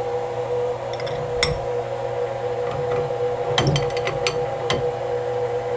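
Steel wrenches clinking on a CNC router spindle's collet nut as the bit is tightened: a sharp click about a second and a half in, then a quick cluster of clinks around the fourth second. A steady hum runs underneath.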